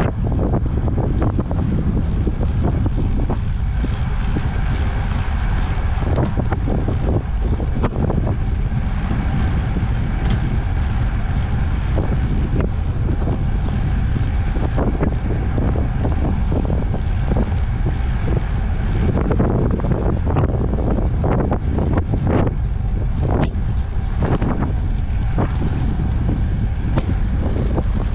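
Wind buffeting the microphone on a moving ICE Sprint X 26 recumbent trike, over the rolling rumble of its tyres on asphalt, with frequent small knocks from bumps in the road.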